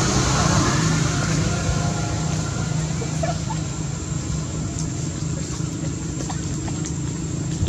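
Steady low hum with a constant hiss over it, and a couple of faint short squeaks about three seconds in.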